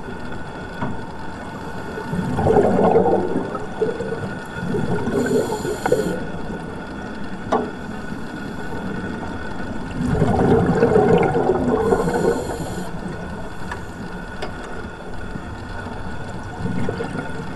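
Underwater sound of scuba divers breathing through regulators: bubbling surges of exhaled air, the two largest about eight seconds apart, with short high hisses of inhalation, over a steady underwater background noise.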